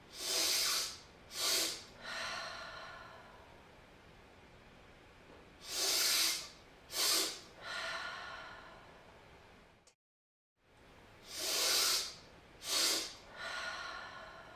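A person doing physiological sighs (cyclic sighing): a long sniffing inhale through the nose, a short second sniff to top up the lungs, then a longer, softer sighing exhale through the mouth. The cycle comes three times, about every five and a half seconds.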